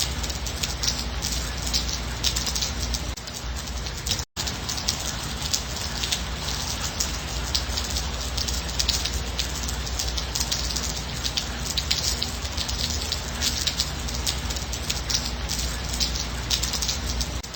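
Steady rain falling, with many separate drop hits over a low rumble. The sound cuts out for an instant about four seconds in.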